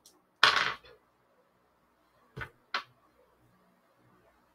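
A pair of dice rolled onto a paper game sheet on a tabletop: a short rattle, then two sharp clicks close together as the dice land.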